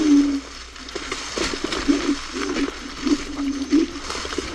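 Electric scooters riding over a wet, leaf-covered forest trail: tyres churning through wet leaves with scattered knocks, and a low hum that keeps coming and going.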